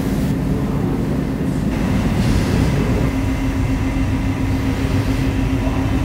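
Steady low rumble with a constant low hum, like building machinery or ventilation.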